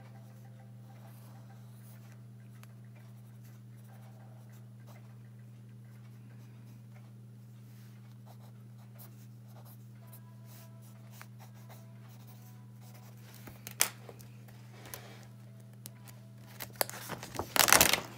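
Pen scratching faintly on paper during drawing, over a steady low hum. About 14 seconds in there is a sharp knock, and near the end there are loud knocks and rustling as the camera is handled.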